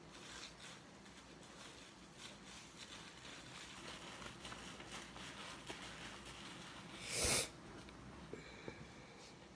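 Faint crackling and small squishes of a wet sponge worked with Comet cleanser powder, with one louder, short rush of noise about seven seconds in.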